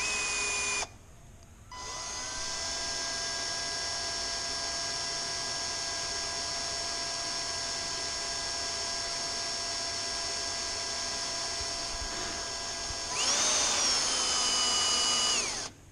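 Cordless drill boring a hole into the front of an aircraft wheel pant fairing: a short burst, then a long steady motor whine, louder and higher for about two seconds near the end before it stops.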